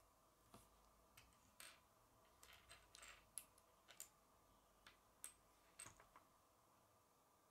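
Faint plastic clicks and taps of small Lego pieces being handled and pressed together, about a dozen, scattered irregularly.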